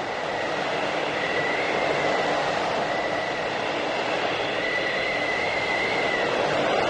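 Blizzard wind blowing hard and steadily in a whiteout, a continuous rush with a thin high whistle that wavers and comes and goes several times.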